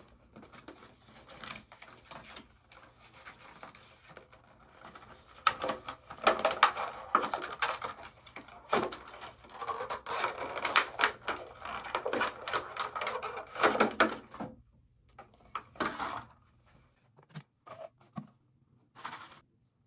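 Cardboard product box and plastic packaging being opened and handled: clicks, scrapes and rustling, busiest through the middle, then a few scattered taps near the end.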